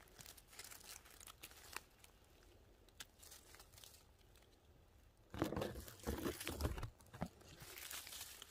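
Dry leaf litter and pine needles rustling and crackling under a hand picking mushrooms from the forest floor: a few light crackles at first, then a louder burst of crunching lasting about a second and a half past the middle.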